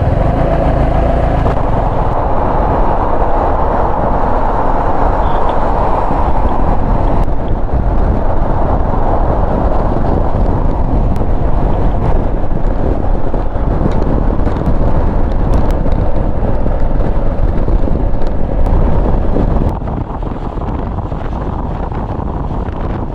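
Motorcycle under way in the rain: dense wind rush and road noise over a faint steady engine tone. The level drops noticeably about twenty seconds in.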